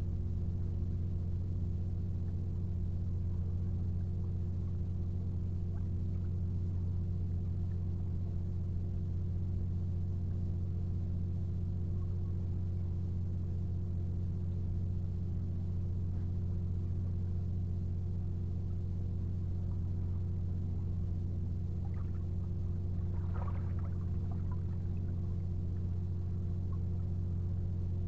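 Steady low engine-like drone made of several constant low tones, unchanging throughout. A brief faint clatter comes about 23 seconds in.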